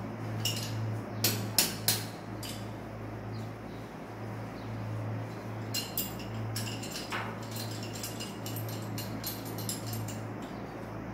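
Sharp metal clicks and clinks of a pipe wrench being handled and set onto a screw-in steel hook in a tiled wall, in two bunches, the first in the opening couple of seconds and the second from about six seconds in. A steady low hum runs underneath.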